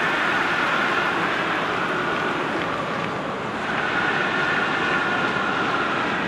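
Steady rushing outdoor noise without voices, dipping briefly about three seconds in.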